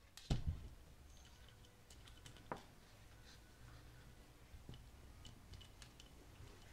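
Light metallic clicks and knocks of a bearing puller's legs and fittings being handled and adjusted by hand on a workbench. A heavier knock comes about half a second in and another about two and a half seconds in, with scattered small ticks between.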